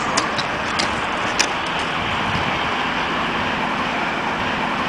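Steady rushing background noise, with a few small sharp clicks in the first second and a half as buckles and clips on a search dog's harness pack are handled. A faint low hum joins partway through.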